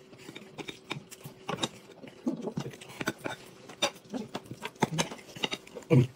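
Chewing and lip-smacking on mouthfuls of flaky chicken-curry puff pastry, with light clicks of a knife and fork against the plate. A few short low hums come about two seconds in and near the end.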